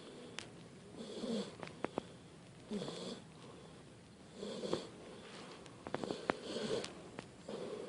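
A sleeping dog snoring, a soft snore about every second and a half, five in all, with a few faint sharp clicks in between.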